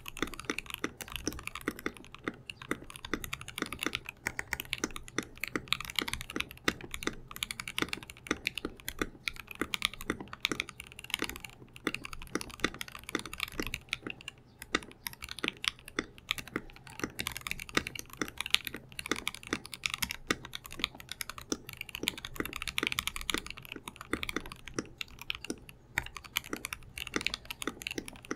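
Continuous fast typing on a Space65 R2 mechanical keyboard with lubed and filmed Alpaca V2 linear switches on an FR4 plate, XMI keycaps: a dense, irregular stream of keystroke clacks with a deeper bottom-out thock under each.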